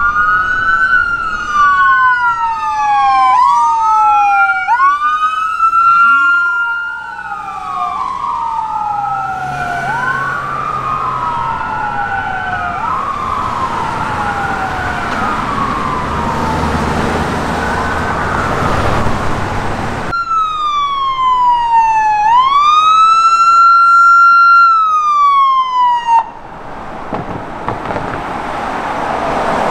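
Ambulance siren on wail, rising and falling about every two seconds and fading as the ambulance drives away. After a cut, a second, louder siren makes one slow wail sweep and stops abruptly, followed by a vehicle's engine and tyre noise coming closer.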